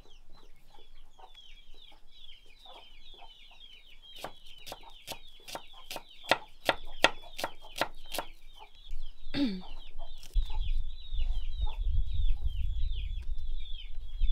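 Chickens peeping and clucking without a break. Between about four and eight seconds in, a kitchen knife knocks repeatedly on a wooden chopping board as shallots are sliced, and a low rumble comes in near the end.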